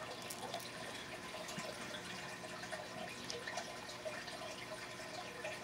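Faint scattered clicks of acrylic bead necklaces being handled, over a low steady hiss.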